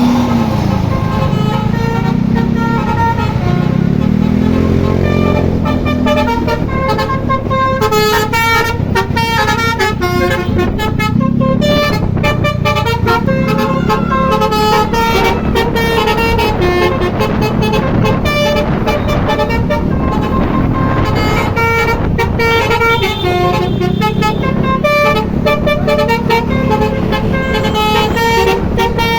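A bus's 'telolet' musical multi-tone horn playing melodies. It begins with a few sliding tones, then plays fast runs of short stepped notes, over the low, steady running of the vehicle's engine.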